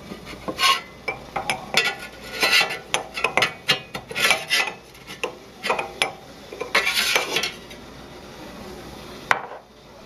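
Irregular clinking and scraping of glass and metal at a Rancilio Silvia espresso machine during a shot pull, dying away about seven and a half seconds in. A single sharp click comes just after nine seconds.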